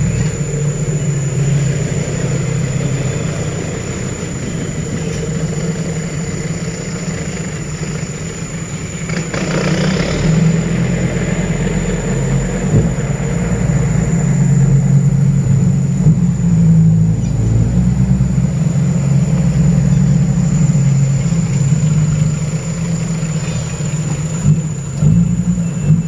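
Diesel engines of loaded dump trucks running: a low, steady drone that grows louder about ten seconds in.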